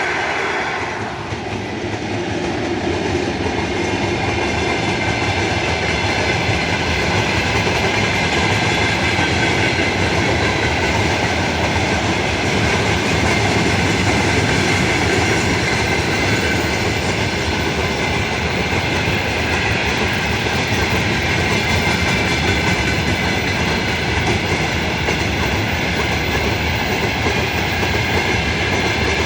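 A freight train rolling past close by: a loud, continuous noise of steel wheels on the rails with no letup.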